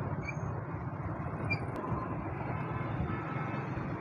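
Steady low rumble of road and engine noise from a moving vehicle in city traffic.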